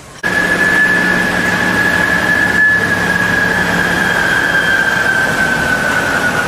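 Small replica steam locomotive hissing loudly as steam blows out around its wheels, with a steady high tone over the hiss that sags slightly in pitch toward the end. The sound starts abruptly just after the beginning.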